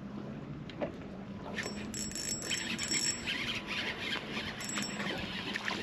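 Spinning reel at work as a hooked crappie is played in: from about a second and a half in, a high-pitched squealing whir comes in short bursts.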